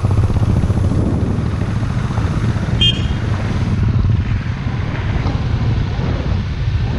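Single-cylinder motorcycle engine running with a steady low throb. A short, high vehicle-horn beep sounds about three seconds in.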